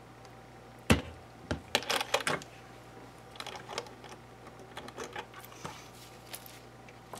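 Plastic clicks and knocks from handling a FrSky Taranis Q X7 radio transmitter: a sharp knock about a second in, a quick run of clicks just after, then scattered taps and clicks as it is set down and its switches are touched.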